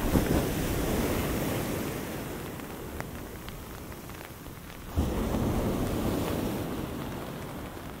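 Storm surf breaking on a beach twice, at the start and about five seconds in, each crash rumbling and then fading over a few seconds, under a steady hiss of rain and wind.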